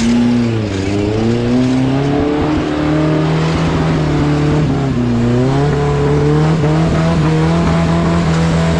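Small modified 4x4 off-roader's engine revving hard under load as it crawls through deep mud. The revs dip and climb again a couple of times, then hold steady over the last few seconds.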